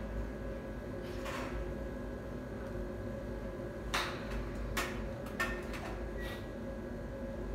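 Golf shots on a driving range: sharp clicks of clubs striking balls, one about four seconds in and a few more over the next two and a half seconds, over a steady background hum.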